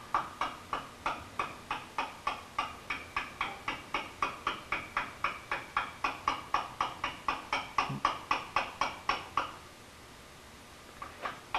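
Small metal mallet tapping a hand lettercarving chisel into flaky stone, with light even strikes about four a second as the chisel cuts along the trench of a letter. The tapping breaks off about nine and a half seconds in and starts again near the end.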